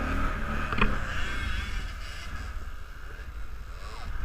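Kawasaki ATV engine running while riding, with wind rumbling on the microphone and a single short knock about a second in.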